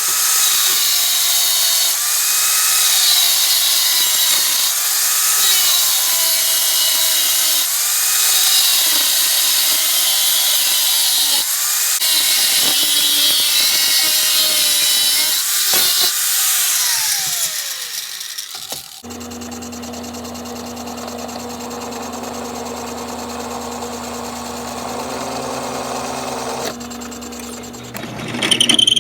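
Angle grinder cutting thin sheet metal, its whine rising and falling as the disc takes load, then spinning down about 17 seconds in. After that a power drill runs steadily, boring a hole through the steel.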